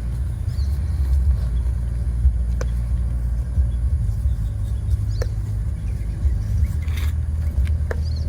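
Steady low rumble of wind buffeting the microphone, with a few faint, short, high chirps here and there.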